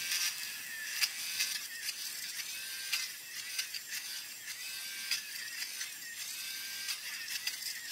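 Small battery-powered rotary tool running at its second speed, its 1.2 mm drill bit chain-drilling a series of holes in a plastic model wheel rim, a steady high whine with occasional light clicks.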